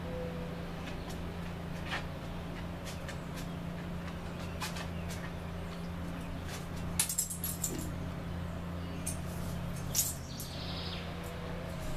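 Scattered light clicks and taps from two dogs, an English bulldog and a Greater Swiss Mountain dog, moving on and around a metal-framed lounge chair, over a steady low hum. The clicks bunch together about seven seconds in and again about ten seconds in, with a brief hiss after the second cluster.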